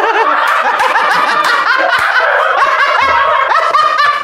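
Several people laughing together, loud and unbroken, many voices overlapping.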